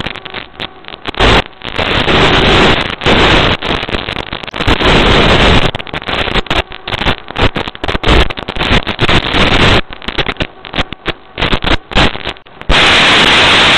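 Crackling static from a racing drone's analog FPV video link, cutting in and out rapidly as the signal breaks up, then settling into a steady loud hiss near the end as the signal is lost.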